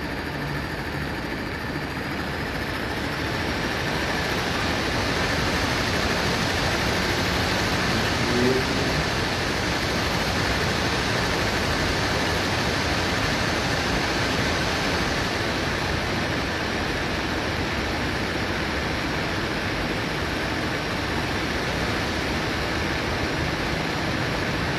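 Loud, steady hiss of noise on a live-stream microphone feed, swelling a little a few seconds in. It is a noise fault in the audio, which the host puts down to his microphone.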